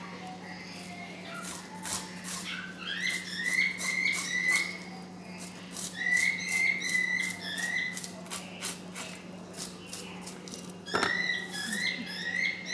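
Scales being scraped off a whole salmon in quick, repeated rasping strokes. Short phrases of high whistled notes sound over the scraping, three times.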